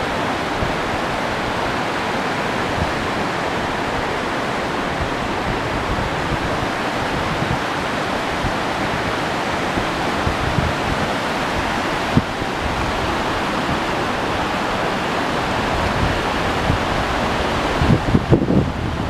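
Mountain river rushing over rocky rapids, a steady, loud hiss of whitewater. Near the end, wind buffets the microphone with uneven low thumps.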